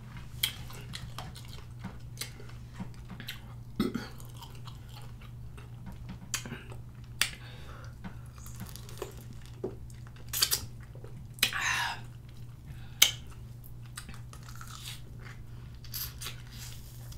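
Mouth sounds of biting into, sucking on and chewing raw lime wedges: scattered wet smacks and clicks, with a few stronger ones in the second half, over a steady low hum.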